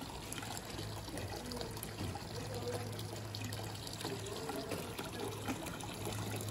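A thin stream of thermal spring water falling from a spout into a water-filled basin: a steady trickle and splash.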